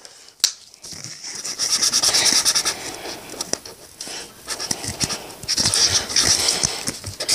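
Felt-tip marker scribbling on paper in fast back-and-forth strokes while colouring in, in two stretches, with a few light clicks and knocks on the table between them.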